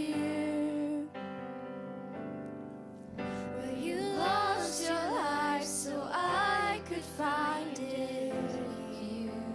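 Worship-band music: sustained keyboard chords, with a voice singing gliding, wordless runs over them in the middle.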